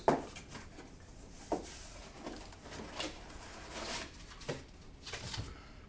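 Cardboard box being opened and handled: scattered light knocks, scrapes and rustles of packaging.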